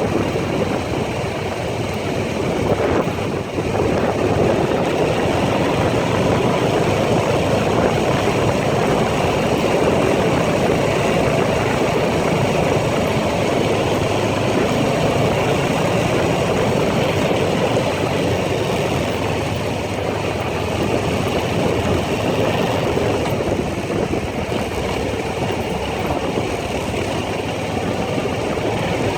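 ATV engine running steadily while riding on trails, with a short dip in level about three seconds in.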